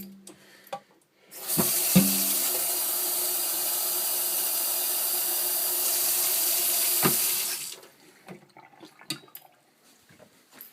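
Water running from a tap into the coffee machine's plastic water tank, a steady hiss for about six seconds that stops near the end, with a few knocks of the tank being handled before and after.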